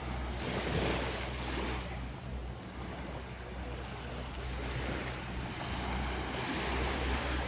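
Small waves washing up on a sandy beach, the surf swelling about a second in and again near the end, with wind on the microphone and a steady low rumble underneath.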